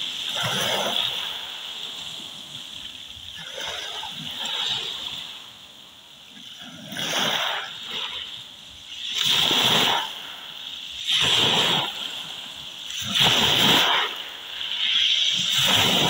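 Small waves breaking on a pebble beach and washing up over the stones, one surge after another. The surges are softer in the first half and come louder, about every two seconds, in the second half.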